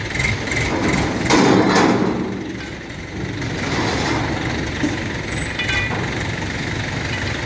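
A heavy vehicle's engine idling steadily, with a loud burst of clattering noise about a second and a half in.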